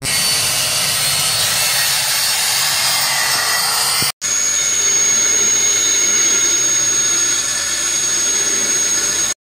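A small handheld rotary tool with an abrasive disc running against the steel of a forged axe head, a steady hissing grind. A sudden cut about four seconds in, then a belt grinder running with a steady high whine as the axe is ground.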